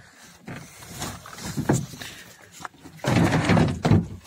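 Rustling and scraping of hands and tools working inside a car door's inner panel, with scattered light clicks, then a loud rough scraping stretch about three seconds in that lasts about a second.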